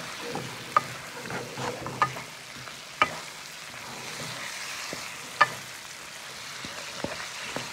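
Lobster pieces and sliced vegetables sizzling in a hot pan while being stirred with a wooden spatula, with a few sharp knocks of the spatula against the pan.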